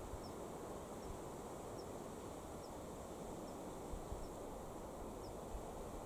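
Outdoor ambience of steady wind hiss with a few low buffets on the microphone, and a faint, short, high chirp repeating a little more than once a second.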